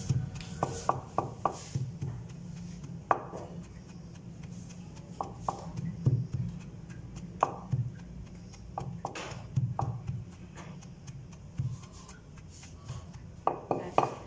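Wooden pestle pounding and grinding dry-roasted oats in a marble mortar: irregular dull knocks and scrapes, coming quickly in the first couple of seconds and more sparsely after. The oats are being crushed only coarsely.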